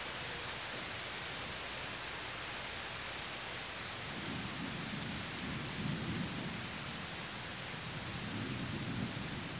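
Heavy rain coming down steadily, with a low rumble of thunder rolling in about four seconds in and lasting several seconds.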